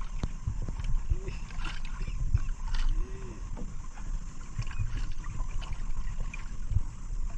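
Water lapping against the hull of a small outrigger boat drifting at sea, with wind rumbling on the microphone and a few light knocks.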